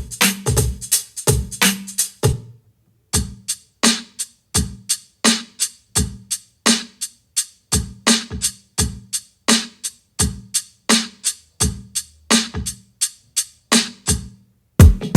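A drum beat: sharp, evenly spaced hits about three a second, with a short break about two and a half seconds in and louder hits near the end.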